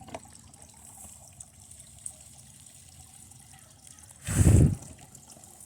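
A circuit board burning under high battery current, with a faint fizzing crackle and scattered small pops. A single loud, short rushing burst comes about four and a half seconds in.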